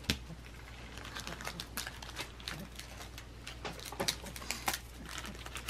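Scissors cutting tape and a plastic bag crinkling as a taped, plastic-wrapped bundle on a cardboard backing is opened: a string of small snips, clicks and rustles.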